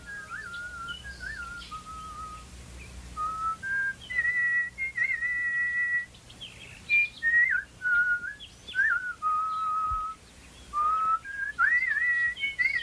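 A whistled bird-song melody standing in for a nightingale's song: clear held notes that slide and warble between pitches, with short trills and faint chirps between phrases.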